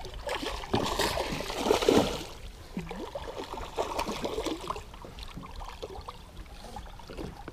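Hooked largemouth bass thrashing and splashing at the water's surface. The splashing is loudest in the first two seconds, then goes on more lightly.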